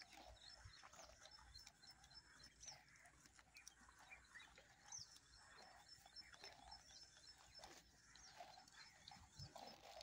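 Faint sounds of water buffalo grazing: short, irregular crunches of grass being torn and chewed.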